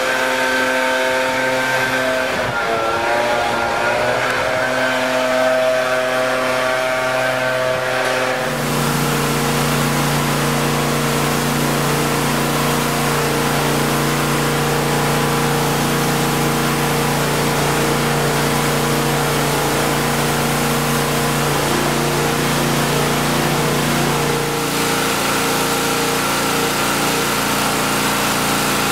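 Gasoline engine of a pressure washer running steadily. About eight seconds in, its note shifts and a steady hiss of spraying water joins it.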